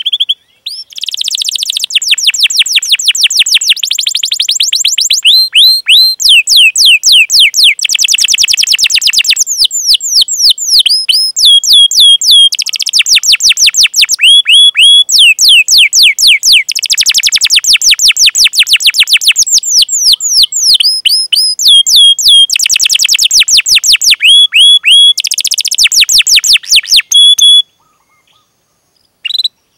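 Domestic canary singing a long, fast song: tight rolling trills alternating with runs of quick repeated chirps. It starts about a second in and stops near the end.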